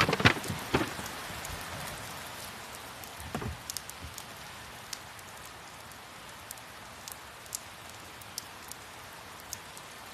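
Steady rain falling, with scattered louder drops. There are a few louder knocks in the first second and another around three and a half seconds in.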